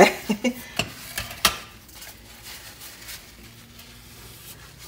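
Three sharp clicks of a caulking gun's trigger and plunger within the first second and a half, as more sealant is laid into a gap along the countertop joint, then only faint handling noise while the bead is smoothed by a gloved finger.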